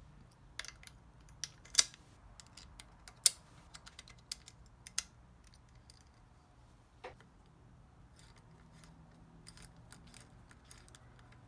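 Sharp metal clicks and taps, densest and loudest in the first five seconds, as finned brake pads held together by their spring are slotted into a Shimano hydraulic disc brake caliper. A few lighter ticks follow near the end as a hex key turns the pad retaining bolt.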